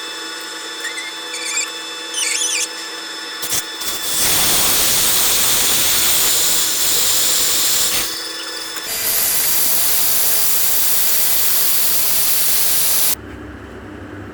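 A power tool runs in two long bursts of about four seconds each, with a short pause between. The second burst cuts off abruptly. Before them come a few faint squeaks.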